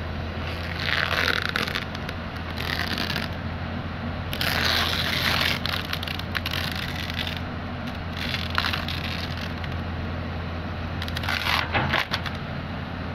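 Komatsu hydraulic excavator's diesel engine running steadily, with several bursts of loose rock scraping and pouring as the bucket scoops and spills its load; the longest burst is near the middle.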